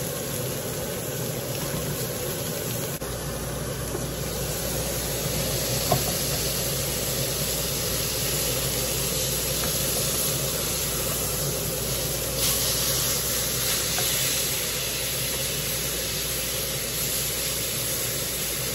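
Beef steak sizzling as it sears in a hot frying pan, a steady hiss that grows louder about twelve seconds in. A few light clicks of metal tongs as the pieces are turned.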